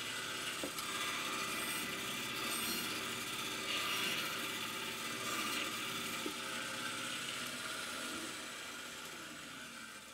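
Bandsaw running steadily while its blade skims the surface of a wooden shoe last in light rasping passes, only a millimetre or two of wood coming off each time. Near the end the saw's sound falls in pitch and fades as it winds down.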